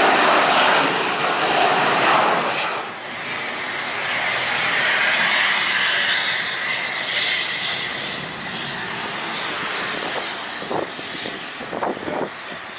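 Jet airliner passing close overhead on landing approach. A loud engine roar drops off after about two and a half seconds, leaving a whining engine tone that slowly fades away.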